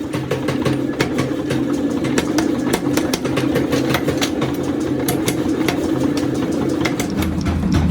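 Forging-shop machinery running with a steady hum, under frequent irregular sharp knocks of metal work, several a second.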